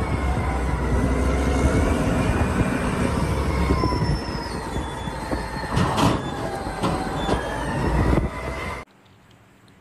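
Caterpillar 992C wheel loader working: heavy diesel engine running under load as the bucket lifts and dumps, with high whining tones that slowly slide in pitch and a few sharp metallic knocks about six seconds in. The sound cuts off abruptly near the end.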